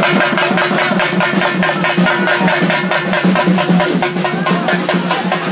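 Fast, steady drumming from a festival percussion band, beating evenly throughout, over a steady low drone.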